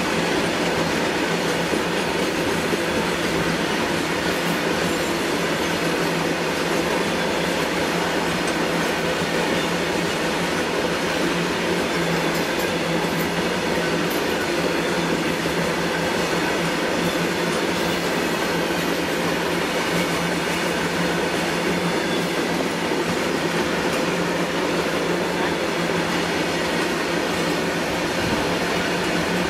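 A long freight train of open-top wagons rolling past at close range: a steady, unbroken rumble of steel wheels on rail.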